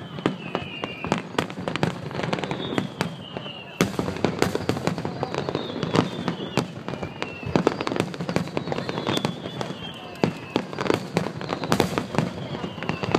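Fireworks going off: a dense run of sharp cracks and pops, with a high falling whistle every few seconds.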